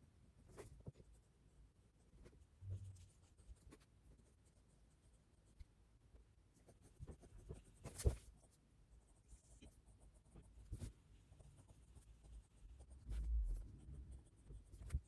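Pen writing on paper: faint scratching strokes with scattered small taps, one sharper tap about eight seconds in, and a couple of soft low thumps against the desk.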